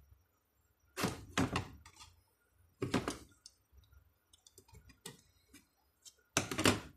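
Knocks and clatter of loose alternator parts, the rectifier plate and regulator, being picked up, handled and set down on a concrete floor. The knocks come in several short clusters, the loudest about a second in and near the end.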